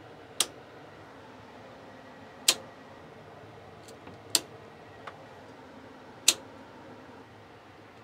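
Circuit breaker switches clicking in a house electrical panel: four sharp snaps about two seconds apart, with a few fainter clicks between. A breaker is being reset as it trips, because charging the power station from the same house circuit has made a shared neutral path, which smart breakers detect.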